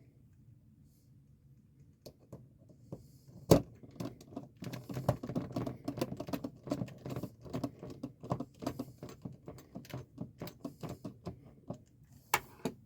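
Small metal clicks and knocks as the ratcheting crimping pliers and their removable jaw dies are handled and fitted back together: one sharp click about three and a half seconds in, then a long run of rapid, irregular clicks, with another sharp click near the end.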